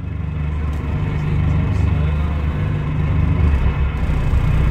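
Scania DC9 five-cylinder diesel engine of a Scania K320IB coach running steadily, a deep low rumble with no revving.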